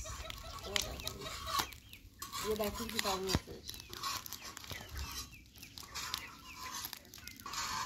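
A hen clucking in short calls, with a few sharp clicks and scrapes of a metal spatula on an iron griddle pan.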